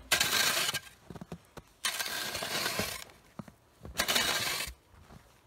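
Transfer shovel scooping and scraping snow, three strokes: the blade crunches through the snow about a second apart, each stroke lasting a second or less.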